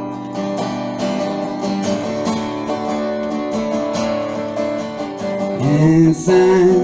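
Acoustic guitar strummed in steady chords during a break in the singing. Near the end a voice comes in with a rising sung note.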